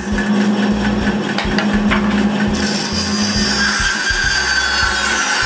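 Band saw running and cutting through a small block of wood fed into the blade by hand.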